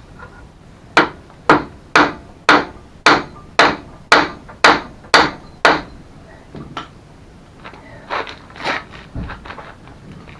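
Hammer driving a tight hinge pin into a mobility scooter's rear hinge: ten hard blows about two a second, then a few lighter taps.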